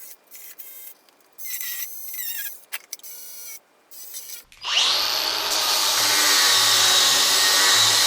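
Electric grinder switched on about four and a half seconds in, spinning up with a rising whine and then running at a steady high pitch, ready to grind the plow's steel clean for welding. Before it starts there is scattered clatter and scraping as things are handled.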